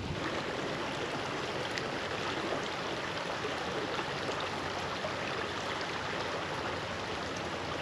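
Steady rush of a shallow creek flowing over a riffle.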